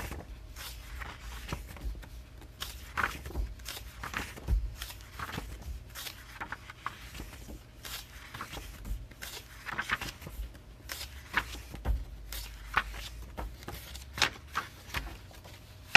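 Irregular clicks, taps and rustles of things being handled on a table, over a steady low hum.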